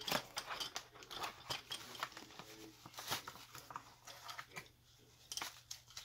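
Clear plastic bag and foam packing crinkling and rustling as a boxed aluminium RC beadlock wheel is unwrapped by hand: a run of small crackles and taps, with a short lull a little after four seconds in.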